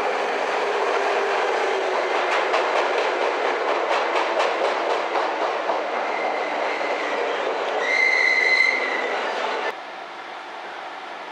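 JR West 221 series electric train running into the platform: steady rolling noise with a run of clicks from the wheels over rail joints, then a high brake squeal about eight seconds in as it slows. The sound drops suddenly to a quieter steady background near the end.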